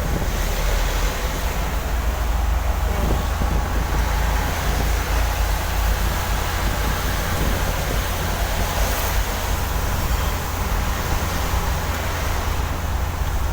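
A vehicle driving on a wet road in the rain: a steady low rumble under an even hiss of road and rain noise.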